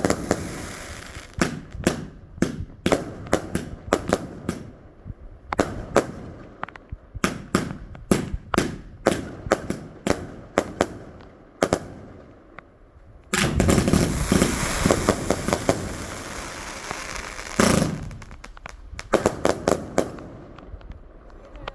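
Fireworks going off: many separate sharp bangs at irregular intervals, then about four seconds of dense, continuous crackling, then more scattered bangs near the end.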